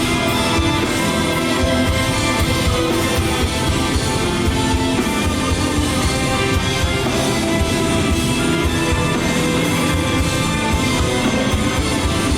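Live rock band playing an instrumental passage of a song: electric guitars over a drum kit, with no singing.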